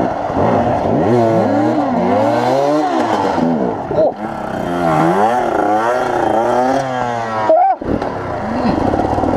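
Dirt bike engine revving over and over, its pitch rising and falling with the throttle. Near the end one sharp rev cuts off abruptly, then the engine sound picks up again.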